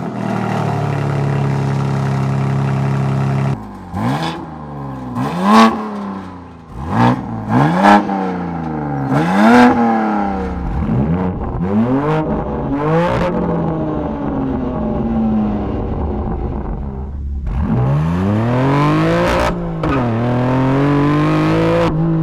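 BMW M4's twin-turbo straight-six through an Eisenmann stainless-steel sport exhaust with quad tips. It holds a steady raised idle, then about seven sharp throttle blips, each climbing and falling back. Near the end the car pulls away, the revs climbing, dipping briefly at a gear change and climbing again.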